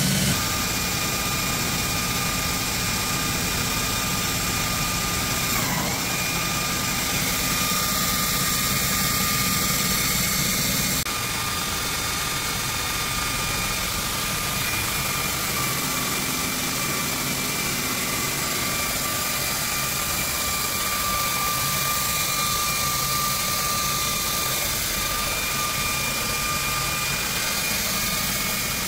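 Automatic abrasive belt grinder with its conveyor feed running steadily: an electric-motor hum with a steady high whine over the noise of the moving belt. The sound shifts suddenly about eleven seconds in.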